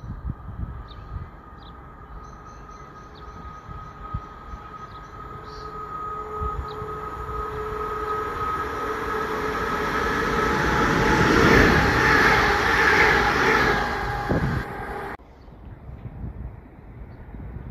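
Electric passenger train approaching along the line, a steady whine with a growing rush of wheels and running gear that rises to a loud peak, then cuts off suddenly about fifteen seconds in.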